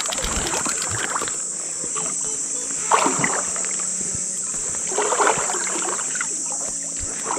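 Water sloshing and lightly splashing around a float tube a few times, loudest about three and five seconds in, over a steady high buzz of insects.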